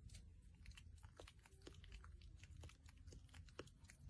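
Near silence: quiet room tone with a low hum and faint, irregular small clicks.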